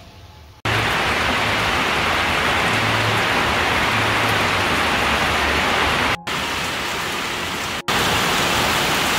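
Heavy rain pouring steadily on garden foliage, starting suddenly about half a second in and cutting out twice for an instant.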